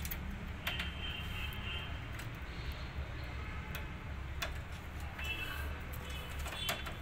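Scattered small clicks and taps of a plastic wire connector and wiring being handled and plugged back into a copier's side panel, over a steady low hum.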